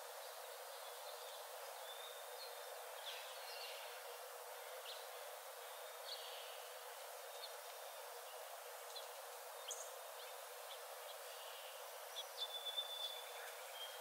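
Forest ambience: a steady background noise with scattered short bird calls and whistles, and a quick run of louder chirps near the end.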